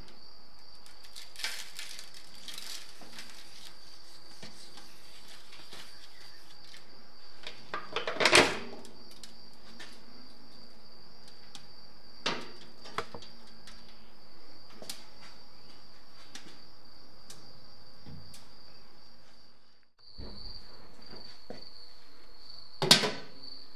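Handling knocks as a dry-rubbed brisket is lifted from a foil pan and set on the smoker's steel grate, the heaviest thump about eight seconds in, then a sharp clank near the end as the smoker's metal lid is shut. A steady high-pitched tone runs behind it, briefly cut off about twenty seconds in.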